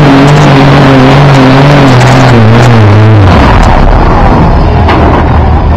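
Diesel pickup truck engine running flat out under heavy load as it drags a pulling sled, its pitch wavering. About three seconds in the revs drop sharply to a low steady run as the throttle comes off at the end of the pull.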